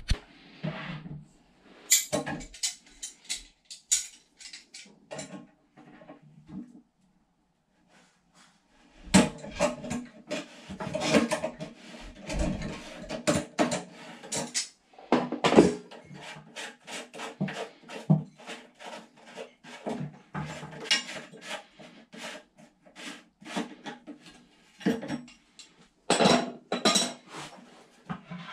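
Repeated knocks, clicks and clatter of hard plastic parts against a ceramic toilet cistern as the siphon is worked loose and handled, with a short break about seven seconds in.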